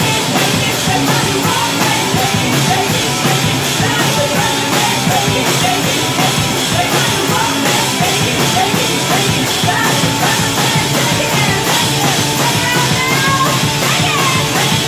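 Live punk-rock band playing loud and steady: distorted electric guitar over a driving drum kit.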